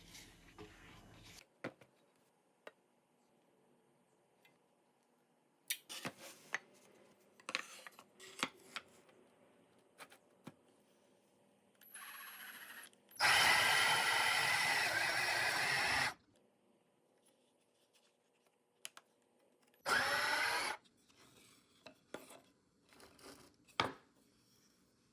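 Homemade drill press with an 18 V 775 DC motor running and drilling for about three seconds about halfway in, then a second short run of about a second. Scattered clicks and knocks of handling in between.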